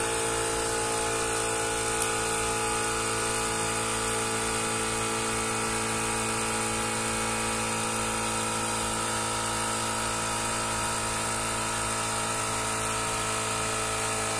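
Portable battery-powered tyre inflator's small compressor running with a steady, even hum, with one small tick about two seconds in.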